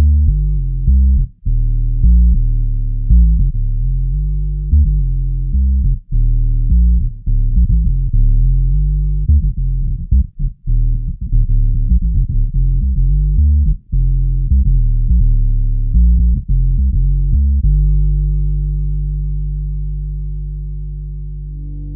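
Electric bass played through an MXR M280 Vintage Bass Octave pedal, adding a sub-octave below the played notes: a busy riff of short, choppy notes, then a single note held from about 17 seconds in that rings and slowly fades. The sound sits almost entirely in the low register.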